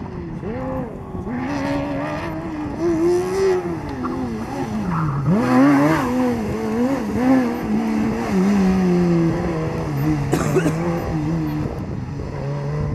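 Formula SAE race car's engine revving up and down as the car weaves through a cone course. The pitch dips and then surges about five to six seconds in, the loudest moment, then settles to a steadier, lower note.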